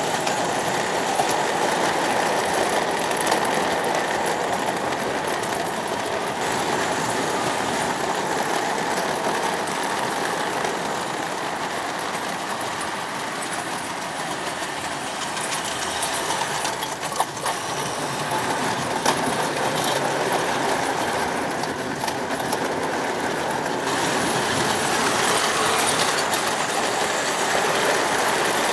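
O gauge model trains running on the track: a steady rattle of wheels on rails with a few sharp clicks, getting louder near the end as coaches pass close by.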